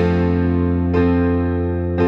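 Instrumental background music: held notes with a new note or chord struck about a second in.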